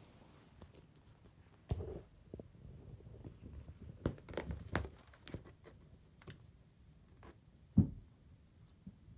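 Two cats play-fighting under a draped fleece blanket on a wooden floor: scattered rustles, scrapes and soft bumps. There is a thump about two seconds in, a busy patch of rustling and knocks midway, and the loudest knock near the end.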